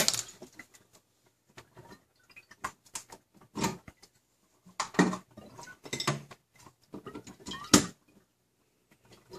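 Handling noise: a scattered series of knocks, clicks and clatter, loudest near the end, as the tap machine's power cord is pulled round and plugged in and the machine is handled.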